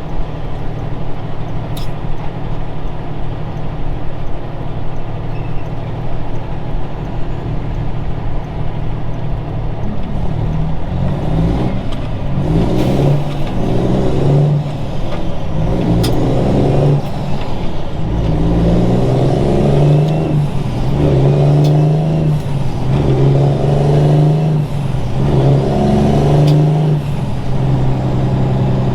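Heavy-truck diesel engine, a Cummins Signature Series, running steadily under way, then rising and dropping in pitch every couple of seconds as it pulls through the gears. The owner believes this engine needs an overhaul.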